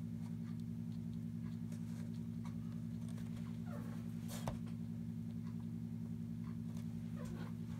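A steady low hum throughout, with faint light taps and scratches of a watercolour brush on textured paper and one sharper click about four and a half seconds in.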